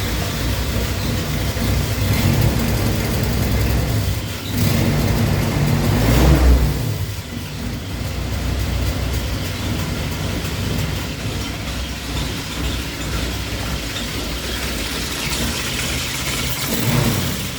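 Ford-built Willys jeep engine running at idle, revved up once about five seconds in and dropping back to a steady idle, with a smaller rise near the end.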